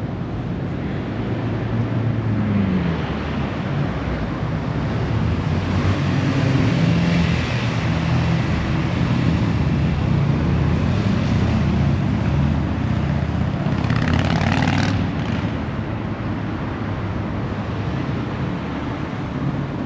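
City street traffic: a motor vehicle's engine running close by, growing louder for several seconds and then easing off, with a brief hiss about fourteen seconds in.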